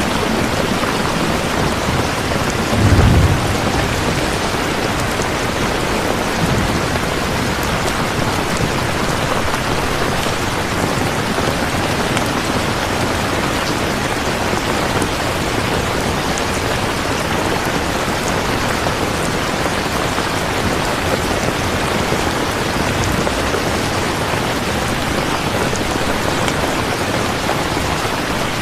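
Steady rain falling, an even hiss of drops with no let-up, and a brief low rumble about three seconds in.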